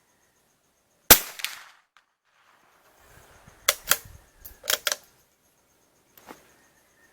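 A single shot from an Anschutz 1418 .22 LR rifle about a second in, with a short ringing tail. A few seconds later comes a quick run of sharp clicks, and one more click near the end.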